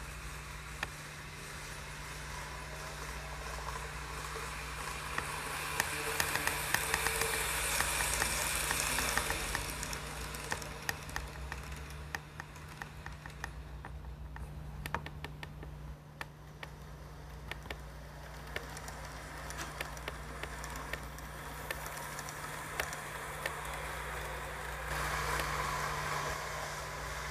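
N gauge model trains running on the layout: small electric motors whirring, with a steady low hum under them. Many small clicks come as the wheels pass over the track joints and points. The whir swells and fades as the trains move.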